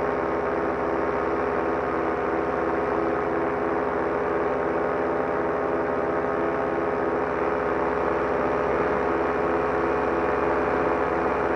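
Solo 210 single-cylinder two-stroke paramotor engine and propeller running steadily in flight, with a slow, regular pulsing beat in the drone.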